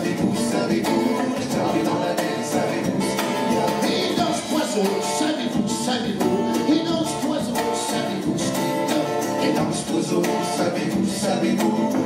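Live Québécois folk music: an acoustic guitar strummed in a lively, steady rhythm with other instruments, in a passage between sung verses.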